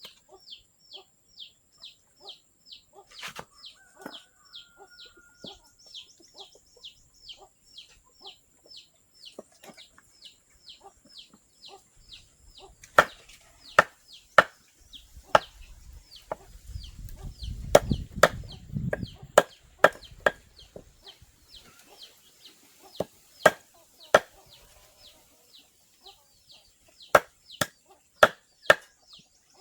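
Repeated high, short peeps, about two or three a second, with sharp, loud chopping strikes coming irregularly from about halfway through.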